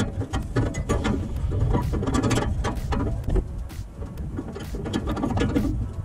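A clamp is being worked by hand around a truck's exhaust pipe, with irregular small metallic clicks, scrapes and knocks.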